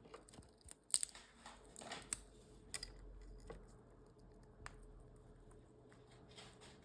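Parrot cracking a sunflower seed in its beak: a run of sharp cracks and crunches, loudest about one and two seconds in, then a few scattered clicks.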